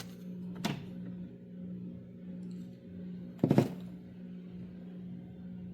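Handling noise from a pair of wall timer switches being held and compared: a faint click a little over half a second in and a louder brief rustle or knock about three and a half seconds in, over a steady low hum.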